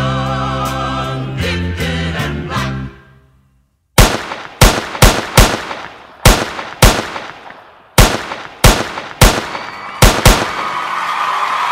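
Music with a singing voice fades out, and after about a second of silence comes a volley of about a dozen gunshots in uneven groups of two to four, each with a short ringing tail. Near the end a crowd starts cheering.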